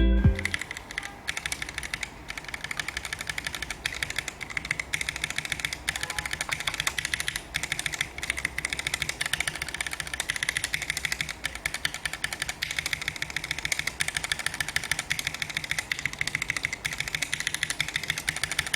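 Mechanical keyboard with Keyfirst Cream switches being typed on quickly and continuously: a dense stream of key clacks with a few brief pauses.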